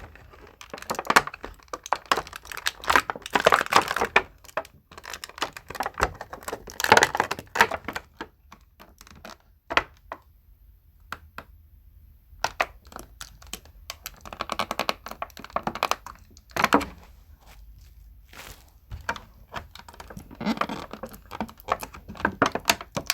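Plastic toy packaging being handled and forced open by hand: irregular crinkling, clicks and small knocks, with a brief pause in the middle.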